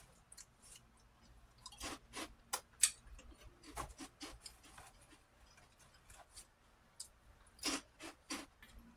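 Prawn crackers being crunched and chewed close to the microphone: irregular crisp crunches, bunched about two to three seconds in and again near the end.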